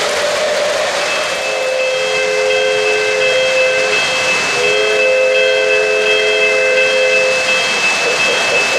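Electronic steam whistle from an O-gauge model locomotive's sound system, a chord blown in two long blasts, over the steady rumble of model trains rolling on three-rail track.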